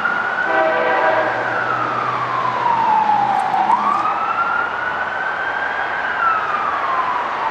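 Emergency vehicle siren wailing, its pitch sweeping slowly up and down in long cycles. A steady multi-tone horn chord sounds over it from about half a second in for some three and a half seconds.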